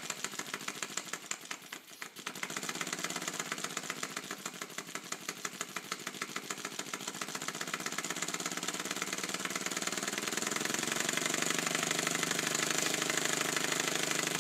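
3D-printed twin-cylinder compressed-air engine running fast on very low air pressure, a rapid even chuffing of exhaust puffs. It dips briefly in level about two seconds in, then runs steadily.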